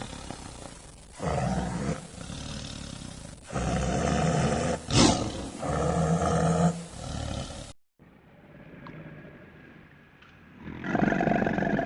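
A large wild animal roaring in three bursts of about a second each. After an abrupt cut, another loud animal call comes near the end.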